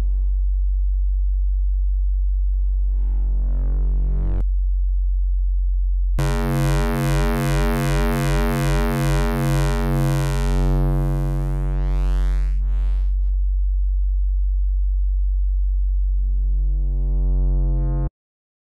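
A Zebra 2 software synthesizer holds one low note while its wave shaping and oscillator settings are changed, so the tone shifts from a plain sine-like hum to buzzy, overtone-rich timbres as harmonics sweep in and out. A pulsing wobble runs for a few seconds near the middle, and the note cuts off suddenly near the end.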